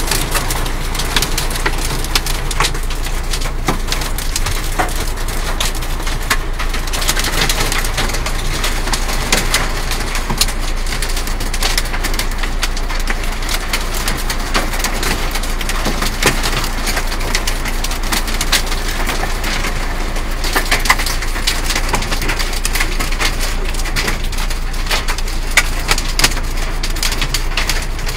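Heavy rain pelting a vehicle's roof and windshield, heard from inside the cab: a steady, dense crackle of drops.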